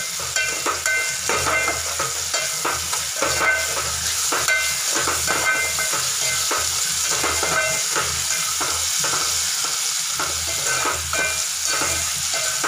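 Steel ladle scraping and clinking against a metal pot, over and over, while onions, chillies, curry leaves and peanuts sizzle in hot oil with a steady hiss.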